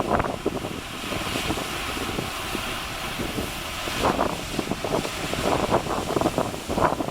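Strong wind buffeting the microphone in irregular gusts, over a steady hiss of surf.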